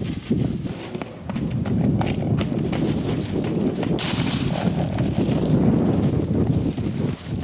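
Hoofbeats of a Hackney horse trotting loose over wet, muddy ground, a run of repeated hoof strikes.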